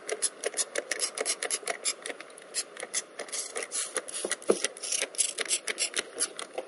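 Hand trigger spray bottle squirting lubricant onto a rubber window seal: a quick run of short hissing sprays, several a second.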